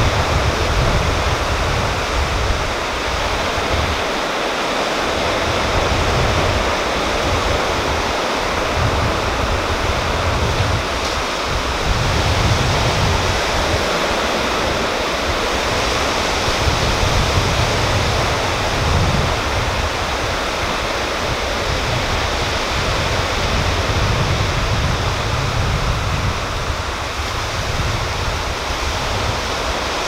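Surf washing onto a rocky beach in a steady rush, with irregular low rumbles of wind on the microphone.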